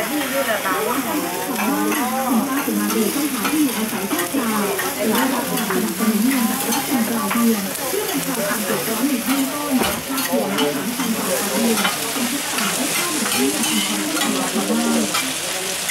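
Food sizzling in a hot pan while a metal spatula stirs and scrapes it, with many quick clicks and scrapes. Low, wavering pitched sounds run underneath throughout.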